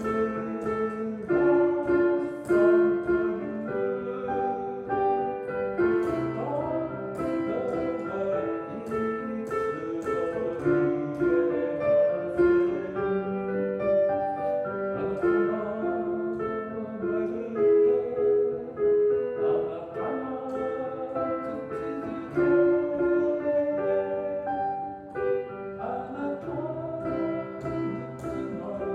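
Street piano being played: a slow melody over chords, each note struck and left to ring.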